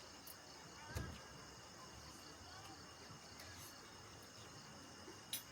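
Faint, steady chorus of insects such as crickets, with a soft thump about a second in and a short click near the end.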